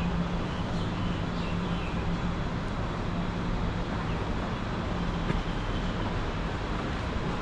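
Airport outdoor ambience: a steady low hum over a constant wash of distant vehicle noise.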